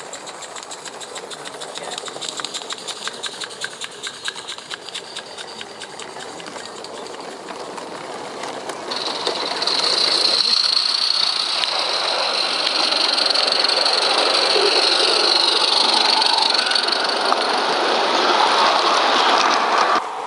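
Live-steam 16mm-scale garden railway locomotive running with its train, its exhaust beating in rapid, even chuffs. About nine seconds in this gives way to a louder steady hiss of escaping steam.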